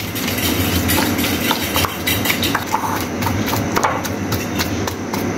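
Wooden masher pounding boiled potatoes in a glass bowl, making repeated irregular knocks of wood against the glass over a steady low hum.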